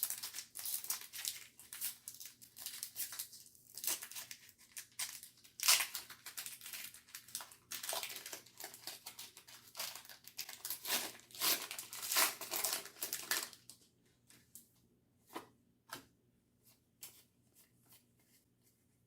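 Foil Pokémon booster pack wrapper being torn open and crinkled, a dense run of crackling and tearing for the first dozen seconds or so, followed by a few light clicks and rustles as the cards are handled.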